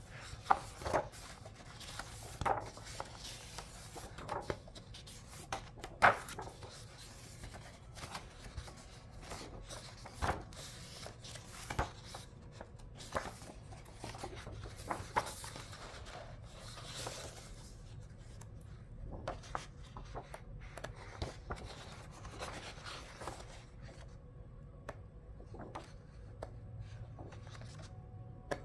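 Pages of a hardcover picture book being turned by hand, one after another: paper rustling and flapping, with sharp slaps and taps at irregular intervals, the loudest about six seconds in.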